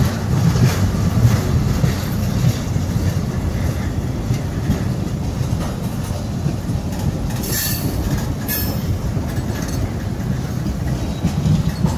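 Freight cars of a manifest train rolling past: a steady low rumble with wheels clacking over the rails, and two brief high-pitched scrapes about seven and a half and eight and a half seconds in.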